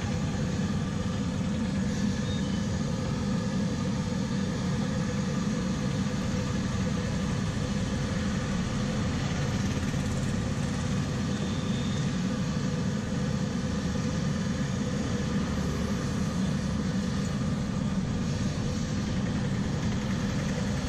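Urad dal vadas deep-frying in a large iron kadai of oil: a steady sizzle over a steady low rumble.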